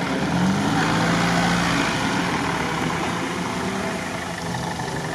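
UAZ off-road 4x4's engine running steadily at low revs close by as the vehicle creeps forward, its pitch rising slightly in the first second.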